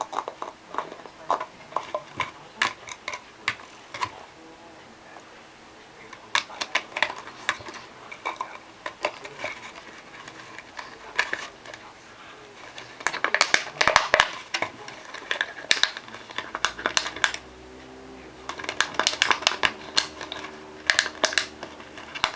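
A puppy chewing and pawing at a plastic water bottle: irregular clusters of sharp crackles and crunches from the plastic, busiest in the second half.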